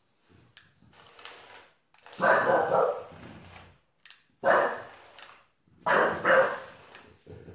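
A bulldog barking at a small toy robot, four barks with the last two close together; the owner says the dog is afraid of the robot.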